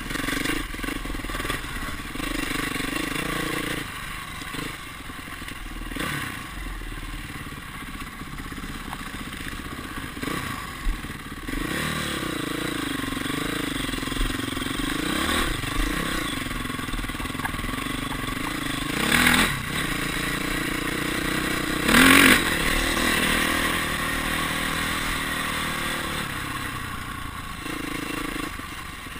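Dirt bike engine heard from the rider's helmet camera, its revs rising and falling as it is ridden along a rough trail, with rattling and thudding of the bike over the bumps. Two brief louder bursts come about two-thirds of the way through.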